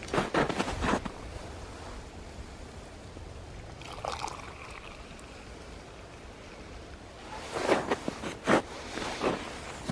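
A few footsteps near the start and again in a run of steps near the end, over a steady rushing background noise.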